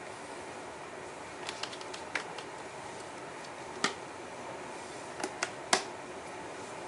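Several sharp clicks and knocks over a steady background hum: a small cluster about a second and a half in, a single one near four seconds, and three close together near the end, the last the loudest.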